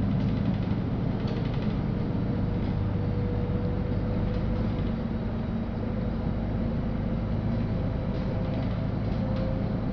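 Steady engine and road rumble inside a moving LiAZ-5292 city bus, with a faint steady whine and a few light rattles.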